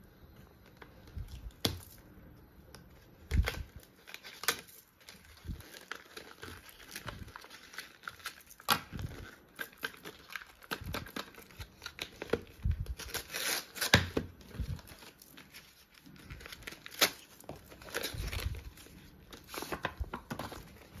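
Paper gift wrapping being torn off a small box and crumpled by hand: irregular rips and crinkles, some sharp and loud.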